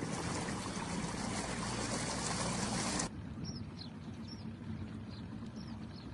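Floodwater rushing with an even hiss. About three seconds in it cuts abruptly to a quieter, softer rush with a few faint high chirps.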